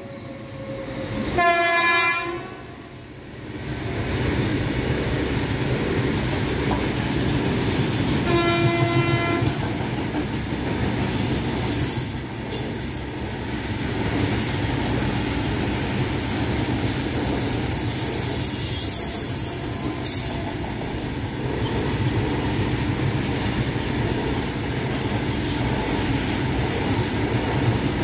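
A freight train sounds its horn twice, briefly near the start and again about eight seconds in. Then a long rake of covered goods wagons runs past with a steady rumble and wheels clattering over the rail joints, with a faint high wheel squeal over the noise.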